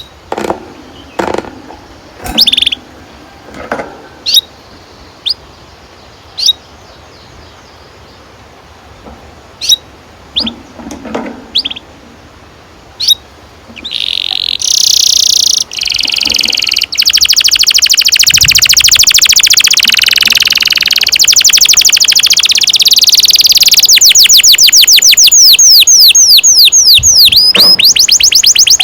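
Domestic canary singing: scattered single chirps for the first half, then, about halfway in, a loud long rolling trill. Near the end the trill turns into a fast run of swooping notes.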